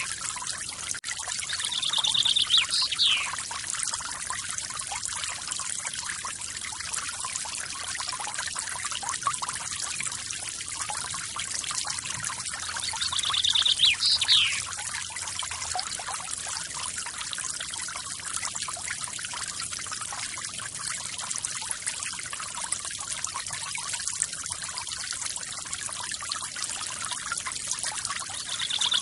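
Waterfall water splashing and trickling steadily. A bird calls three times, each call a fast trill followed by a steep falling whistle: about 2 seconds in, about halfway and at the very end.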